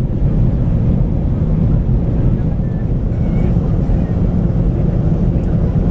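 Steady low cabin roar inside an Airbus A340 airliner during its descent, the four engines and the air rushing past the fuselage blending into one even rumble with a faint steady hum underneath.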